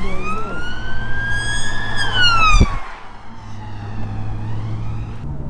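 Emergency-vehicle siren wailing, heard from inside a car: its pitch rises for about two seconds, falls away over the next second, then faintly starts to climb again near the end. Under it the car's V8 engine hums steadily, with a short low thump about two and a half seconds in.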